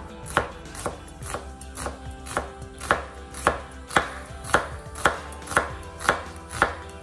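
Chef's knife thinly slicing a shallot on a wooden cutting board, each cut ending in a knock of the blade on the board, about two a second in an even rhythm.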